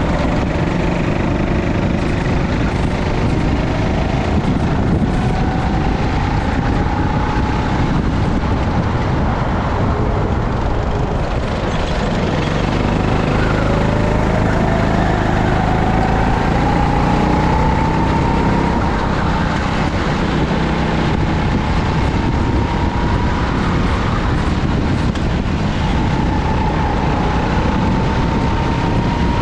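Go-kart engine running at speed, heard from on board the kart, its pitch rising several times as it picks up speed.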